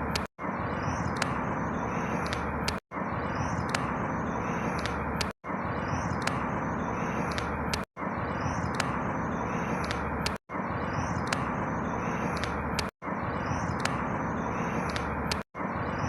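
A short clip of steady outdoor noise with a few faint high chirps, looped about every two and a half seconds. Each repeat is cut by a brief dropout to silence.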